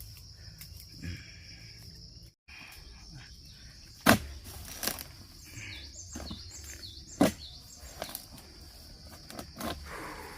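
Sharp knocks from oil palm harvesting, two loud ones about three seconds apart, with a few weaker ones between. Under them runs a steady high-pitched insect drone.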